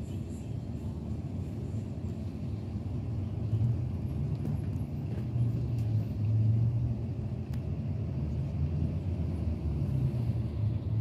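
Low, steady engine rumble heard from inside a road vehicle waiting in traffic, growing a little louder for a few seconds in the middle.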